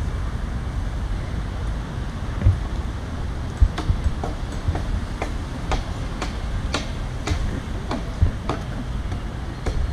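Sharp knocks of a hand tool striking wood, about two a second, starting a couple of seconds in, over a steady low rumble.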